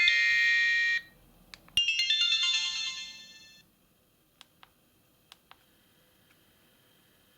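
Polyphonic ringtones played through the small speaker of a Maxcom MM139 feature phone. One tune cuts off about a second in, and after a click a second one starts with a falling run of notes that fades out by about halfway. Then a few faint clicks.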